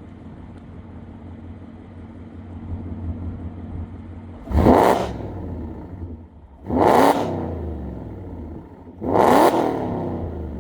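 2024 Ford Mustang GT's 5.0 V8, breathing through long-tube headers, an H-pipe and a Roush axle-back exhaust, idling with a low burble and then revved three times in quick blips, each rising sharply and falling back to idle.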